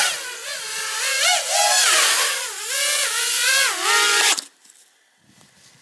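FPV racing quadcopter's brushless motors and propellers whining in flight, the pitch rising and falling as the throttle changes. It cuts off suddenly about four and a half seconds in.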